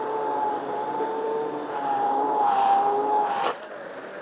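Electric hand blender running in a thick pot of cooked lentils, rice, wheat and barley, pureeing the haleem base: a steady motor whine whose pitch sags a little as it works the mix, then cuts off about three and a half seconds in.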